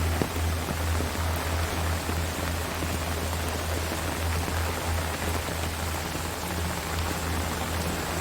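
Steady rain falling on rainforest foliage, an even continuous hiss over a low pulsing hum.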